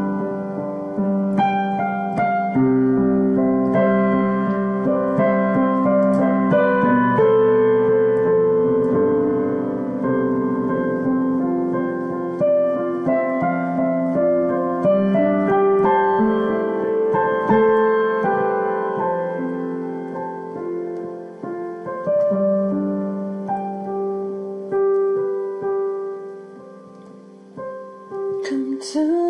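Solo piano improvising slow, sustained chords and melody. It grows softer toward the end, then a new, louder chord is struck just before the end.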